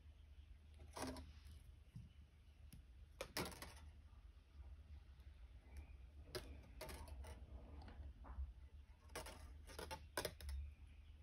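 Faint, irregular clicks and small scrapes of thin 22-gauge copper wire being pulled through and wrapped around a copper wire cuff bracelet, over a low steady hum.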